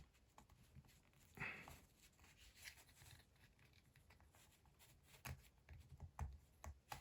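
Faint scraping and small clicks of a plastic prying tool worked into the seam of a car key fob's plastic case to release its clips: one short scrape about one and a half seconds in, then a few light clicks near the end.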